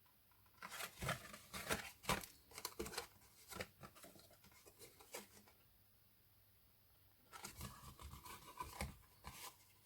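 Stiff card being handled and pressed together as taped flaps are lined up and stuck: papery scraping, rustling and light taps in two spells, with a pause of about two seconds between them.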